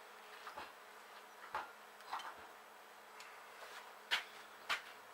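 A few sharp metallic clicks and knocks of hand tools being handled on metal, the loudest about four seconds in, over a faint steady buzz.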